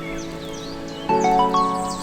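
Background music of soft, sustained chime-like chords, with a new chord struck about a second in, and birds chirping over it.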